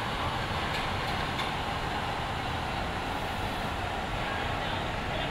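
Steady industrial noise of a truck assembly line: a constant machinery and conveyor din with a few faint clicks about a second in.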